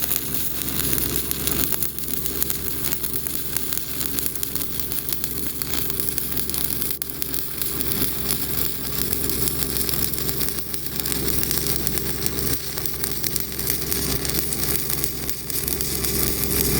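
Stick-welding arc of a Pipeliner LH-D low-hydrogen downhill electrode, crackling and sizzling steadily as the bead is run down a pipe joint through the 3 o'clock position, with a steady low hum underneath.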